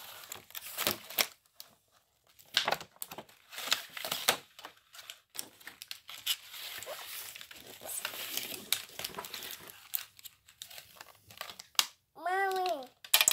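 Packaging crinkling and tearing in irregular bursts as new toys are unwrapped. A short voice with a rise-and-fall in pitch comes near the end.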